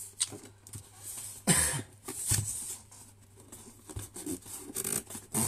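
A knife slitting packing tape and cardboard on a parcel box, with uneven scrapes, rasps and clicks of handling. The loudest rasp comes about a second and a half in.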